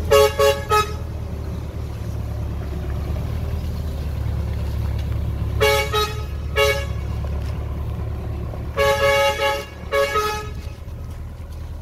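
Vehicle horn tooting in short bursts: three quick toots at the start, two more about six seconds in, and a longer toot followed by a short one near the end. A steady low engine drone runs underneath.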